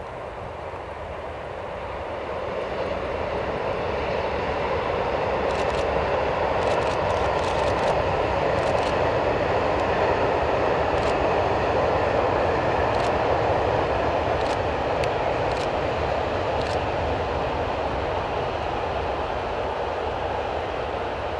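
Loaded freight train of Eaos open wagons, hauled by a Siemens Eurosprinter electric locomotive, passing at a distance: a steady rumble of wheels on rail that swells to its loudest about halfway through and then slowly fades, with a few sharp clicks in the middle.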